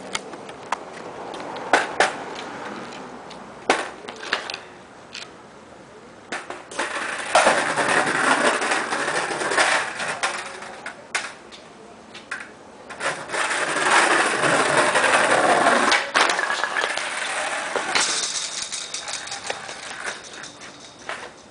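Skateboard wheels rolling on concrete in stretches of a few seconds, with several sharp clacks from the board.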